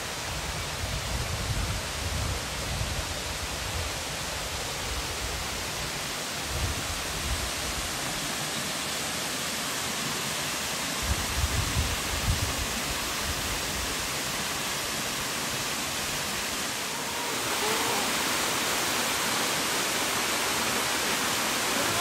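Waterfall, a 22 m branching fall, giving a steady rush of falling water with a few low thumps in the first half; about 17 seconds in it turns louder and brighter.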